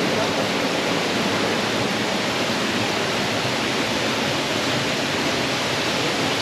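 Waterfall's falling water in a steady, unbroken rush.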